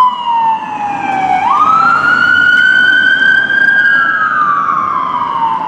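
Siren of a fire department response van in a slow wail: the pitch falls, sweeps back up about a second and a half in, holds high, then falls again, growing fainter near the end as the van drives away. Vehicle and road noise runs beneath it.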